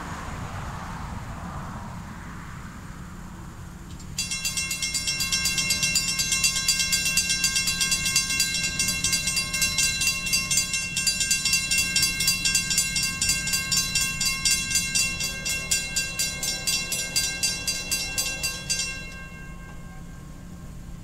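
Railroad grade-crossing warning bell ringing in rapid, evenly repeated strikes, signalling an approaching train as the crossing lights flash and the gates lower. It starts about four seconds in and stops shortly before the end, over a low steady rumble.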